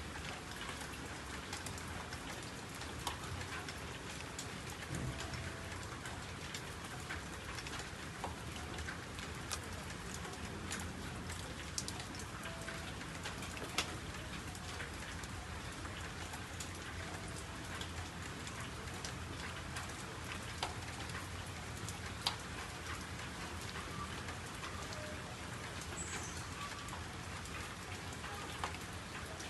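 Steady rain, with many scattered drops ticking against a surface.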